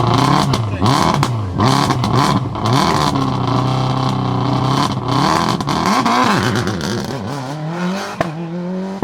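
Subaru Impreza S7 WRC's turbocharged flat-four rally engine revving up and down sharply several times, with sharp pops and crackles, then held higher before settling lower and fading. A single sharp bang comes near the end.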